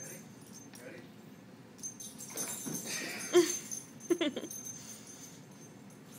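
Border collie giving a few short, excited yelps in play, loudest a little past halfway.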